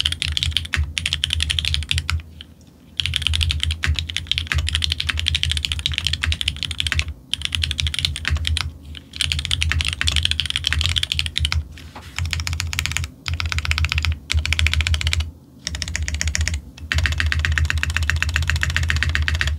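Fast typing on a custom mechanical keyboard with an F1-8X case, aluminium plate, leaf gasket mount, lubed diamond-polished Cherry MX Black Hyperglide linear switches and Leopold keycaps. Key presses come in rapid runs of a few seconds each, broken by short pauses, with a deep bottom-out under the higher clack.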